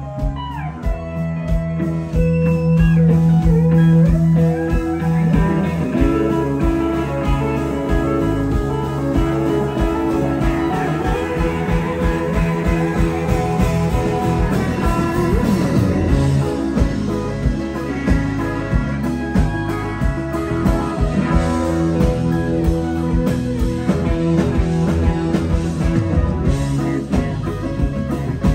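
Country band playing live, an instrumental stretch with no vocals: electric guitars and pedal steel guitar over bass and drums, loud through the stage PA.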